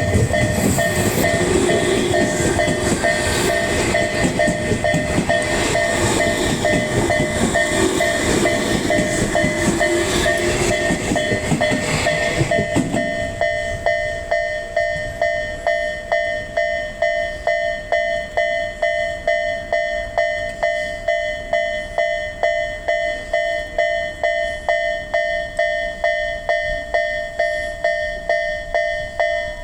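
Japanese level-crossing alarm ringing in a steady repeating ding, just under two strikes a second, as an electric train runs over the crossing. The train's rumble and wheel noise stop about 13 seconds in, and the crossing alarm keeps ringing on its own.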